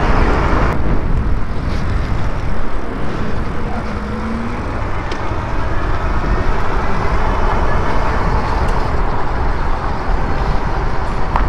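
Wind rushing over the microphone and road noise while riding an electric bike: a steady, deep rush.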